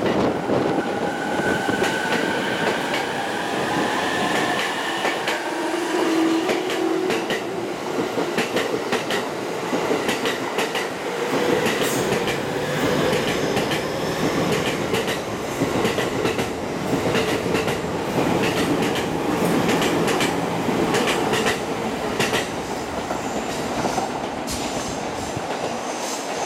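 E231-1000 series electric train departing, its traction motor whine rising in pitch as it accelerates over the first few seconds. After that, a steady running noise with wheels clicking over rail joints as the cars pass.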